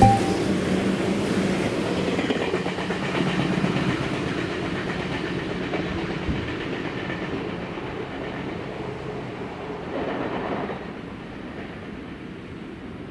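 Electric train running past on the tracks, its wheels clattering over the rails, the sound fading steadily as it moves away. A sharp knock right at the start.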